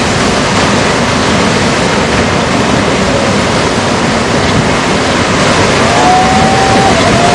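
Loud, steady rushing noise like surf or rushing water, with a faint wavering whistle-like tone in the last second or so.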